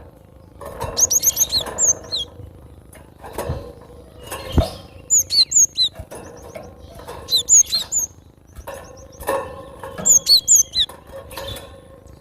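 Cinereous tit (gelatik batu) singing: four bursts of quick, high, down-slurred whistled notes a few seconds apart. Two dull thumps fall between the first and second bursts.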